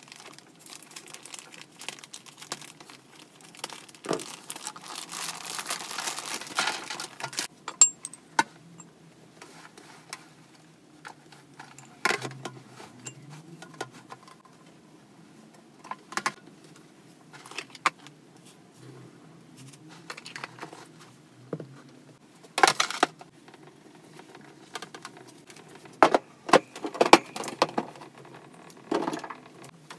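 Hamster cage parts being handled during cleaning: scattered clicks and knocks. There is a stretch of crinkling rustle about four to seven seconds in, and a cluster of sharper knocks near the end.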